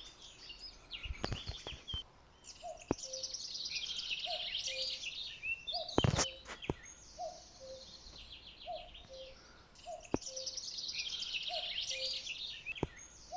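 Common cuckoo calling its two-note 'cuck-oo' over and over, a falling minor third, about once every second and a half. Other small songbirds sing fast high trilling phrases in bursts over it, and a few sharp clicks cut in, the loudest about six seconds in.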